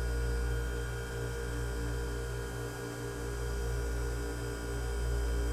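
Steady low hum of electrical equipment in a boat's engine room, with several steady tones above it.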